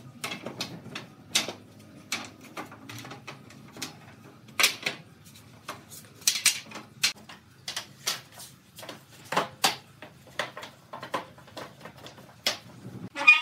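Wooden slats of a folding bed frame knocking and clattering against each other and the frame as they are lifted and folded up against the headboard. The knocks are sharp and irregular, several a second at times.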